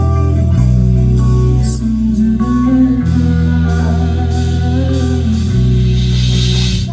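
Band music without singing: guitar playing over sustained bass notes that change about every two and a half seconds.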